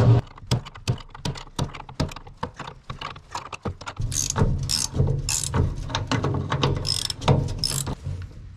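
Hand ratchet wrench clicking as a fuel tank mounting bolt is worked loose from under the truck. At first single clicks come a few a second; from about four seconds in come louder, quicker runs of ratcheting with each swing of the handle.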